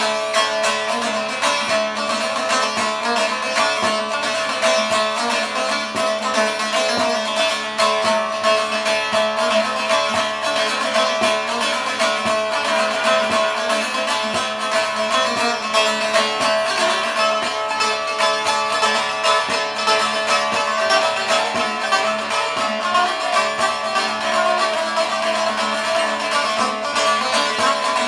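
Saz (long-necked bağlama lute) played solo, a stream of fast plucked notes over a steady ringing drone note.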